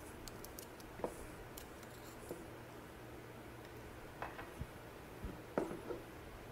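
A few faint clicks and taps of a flathead screwdriver prying the O-ring and seal seat out of a centrifugal pump's seal cap, with the parts set down on the bench, over a low room hum.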